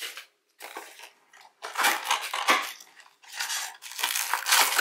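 A trading-card hanger box's packaging being torn open by hand, crinkling and tearing in several bursts with short pauses between them.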